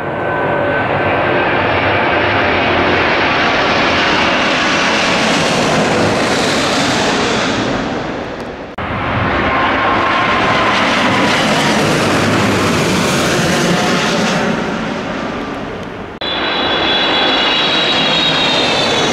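Boeing 777 twin-engine jetliners on final approach passing low overhead: a loud, dense rush of jet noise in three separate passes, the sound breaking off sharply between them. In the last pass a high engine whine rides over the rush and slides slightly down in pitch.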